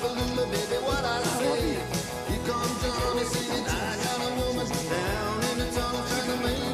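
Rock song with a male singing voice, guitar and a steady beat.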